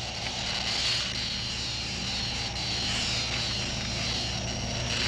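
Electrical arcs crackling and buzzing over a steady low hum, a film sound effect of a lightning-like discharge.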